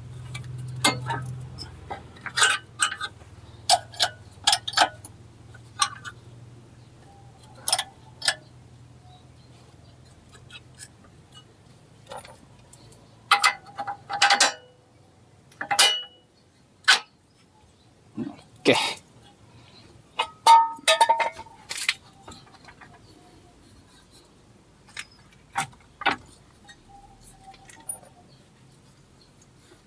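Irregular metallic clinks and knocks of hand tools and steel parts being handled while a car's drive shaft and suspension are worked on, some strikes ringing briefly. A faint low hum fades out in the first ten seconds.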